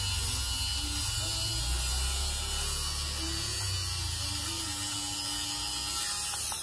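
Xiaomi Mijia fuzz trimmer, a battery-powered fabric shaver, running with its motor and spinning blades making a steady high whir. It is pressed over pilled cloth, shaving off the fuzz.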